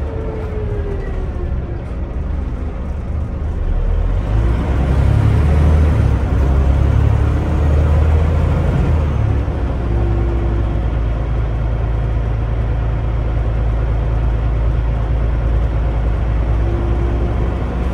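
Scania OmniDekka double-decker bus under way, heard from inside on the upper deck: diesel engine and road rumble. It grows louder about four seconds in, then runs steadily.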